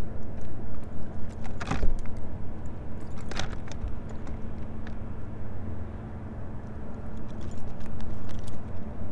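Light clicks and metallic rattling from handling a bladed swim jig and a just-caught spotted bay bass being unhooked, with two sharper clicks in the first few seconds, over a steady low rumble.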